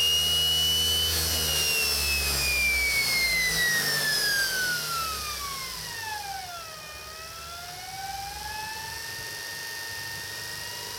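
SepEx DC motor spinning the VW flywheel through a Kaylor adaptor with no load, giving a high electric whine. About a second in the pitch starts falling steadily as the motor slows over some six seconds, and the whine gets quieter. Then the pitch climbs slowly again as the motor speeds back up.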